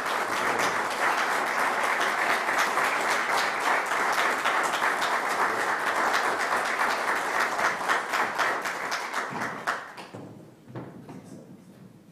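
Audience applauding with dense, steady clapping that fades away about ten seconds in, leaving a few faint knocks near the end.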